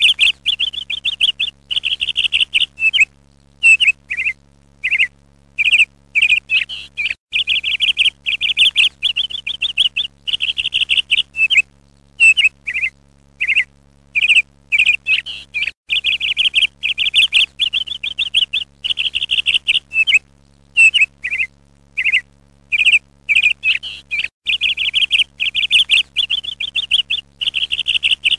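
Songbird singing: bursts of rapid trilled chirps, repeated again and again with short pauses, over a faint steady low hum.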